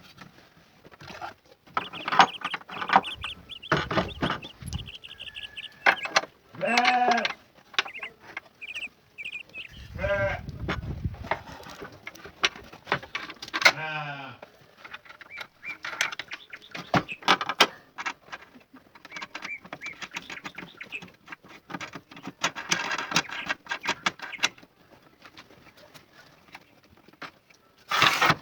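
Livestock bleating three times, each a wavering pitched call, among scattered clicks and knocks.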